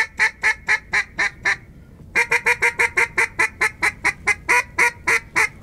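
Duck call blown in rapid hen-mallard quacks: a run of about seven at roughly four a second, a short break, then a longer, slightly faster run.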